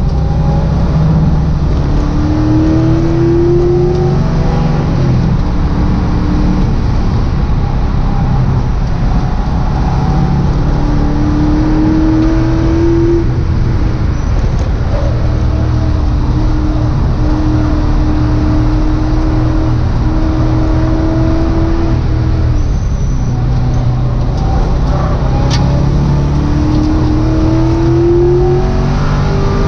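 Freshly rebuilt GM LS V8 in a Mazda Miata race car, heard from inside its cabin at speed. The engine note climbs in pitch under throttle three times and holds a steady pitch in between.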